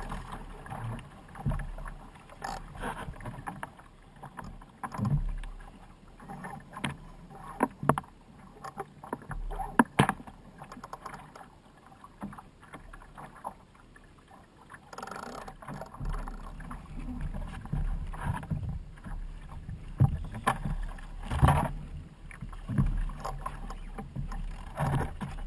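Water splashing and lapping against a Laser sailing dinghy's hull as it sails, with wind rumbling on the microphone and occasional sharp knocks from the boat.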